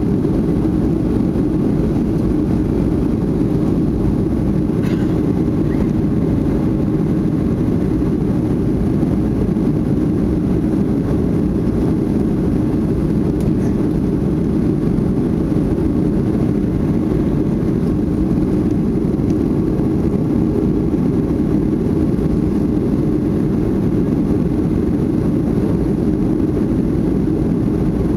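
Steady jet-engine noise heard inside the cabin of a Boeing 737-500, a deep, even rumble from its CFM56-3 turbofans that holds level throughout.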